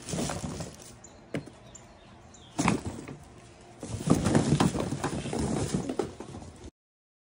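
Goods being rummaged and lifted out of a large cardboard pallet box: separate knocks and rustles of cardboard and packaging, then a busy stretch of rustling and rubbing from about four seconds in as a large plush toy is pulled out. The sound cuts off suddenly near the end.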